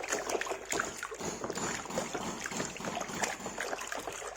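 Water sloshing and splashing with small knocks as a toy truck is washed by hand in a basin of water.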